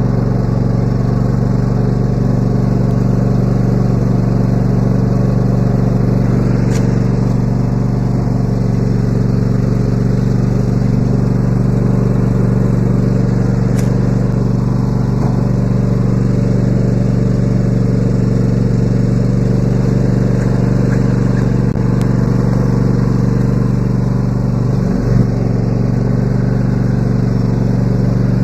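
Riding lawn mower engine, mower deck removed, running steadily at an even speed while it tows a yard cart slowly along the rows.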